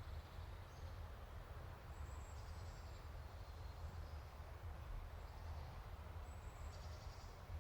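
Faint outdoor nature ambience: a steady low rumble with a few brief, high bird chirps.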